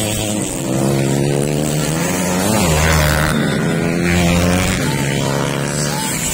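Race motorcycles carrying grain sacks running hard on a dirt track, the engine pitch mostly steady, dipping and rising again about two and a half seconds in.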